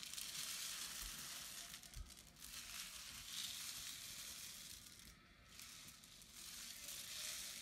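Homemade rain stick, a cardboard paper towel tube with rice inside, tilted back and forth so the rice trickles through in a faint hissing rush like rain. The rush swells and fades as the tube is turned, with a short lull about five seconds in.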